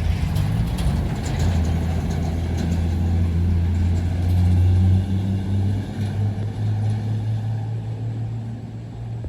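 UD Quester truck's diesel engine pulling hard up a steep climb: a loud, low drone that is loudest about five seconds in, then rises in pitch about six seconds in and fades somewhat before dropping away abruptly.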